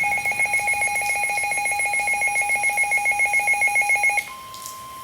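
Midland WR-400 weather radio's electronic alert alarm beeping in a fast, pulsing multi-tone pattern, which cuts off about four seconds in. Then the NOAA Weather Radio 1050 Hz warning alarm tone comes through the radio's speaker as a steady, quieter tone, announcing an incoming warning broadcast.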